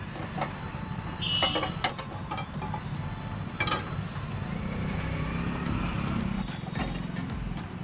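Metal frying pans knocking a few times against the steel gas stove as they are set on the burners and lifted, over a steady low rumble that grows louder in the second half.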